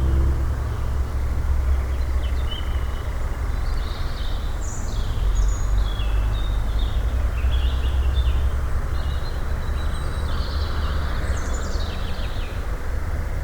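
A songbird singing short, varied high-pitched phrases, one after another, over a steady low rumble.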